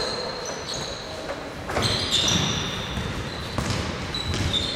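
Futsal players' sneakers squeaking repeatedly on a wooden sports-hall floor, with a sharp thud of the ball being kicked a little under two seconds in.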